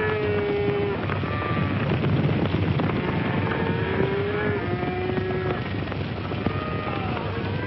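A herd of cattle on the move: many animals bawling at different pitches over a steady rumble of hooves.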